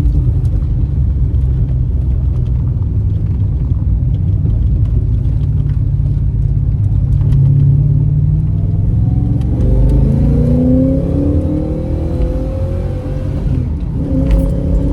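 Holden 5.0-litre 304 V8 of a VS SS Commodore, freshly rebuilt with a new camshaft and ported heads, running with a deep steady rumble. About ten seconds in it revs up with rising pitch, dips briefly near thirteen seconds, then climbs again.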